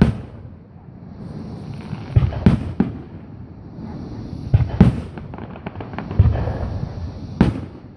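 Aerial firework shells bursting with deep booms, about eight bangs in loose clusters. A spell of crackling follows the bursts near the middle.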